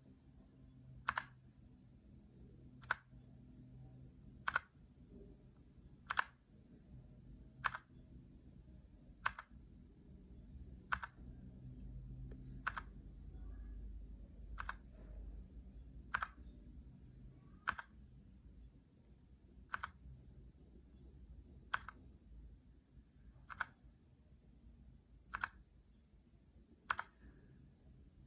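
Keychron K2 mechanical keyboard with brown switches, single keystrokes clacking one at a time, slowly and evenly, about one press every couple of seconds.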